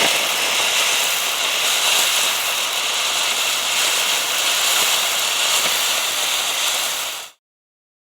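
Firework fountain spraying, a steady loud hiss full of fine, dense crackles, stopping abruptly about seven seconds in.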